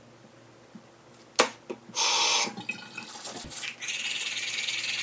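Toothbrush scrubbing teeth with quick, even strokes from nearly four seconds on, after a sharp click about a second and a half in and a short burst of tap water around two seconds.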